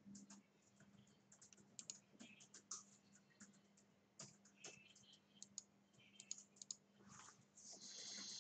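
Faint computer keyboard typing and clicking, irregular keystrokes over a faint steady hum, with a short hiss near the end.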